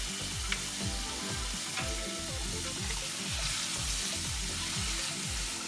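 Diced onion and bell peppers sizzling in a stainless steel saucepan as fresh rosemary is stirred in with a wooden spatula.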